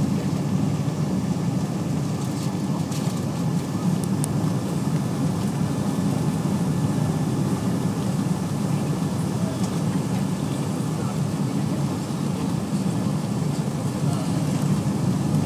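Steady roar of an airliner's jet engines and rushing air heard inside the passenger cabin during the approach to landing, with a faint steady high whine over it.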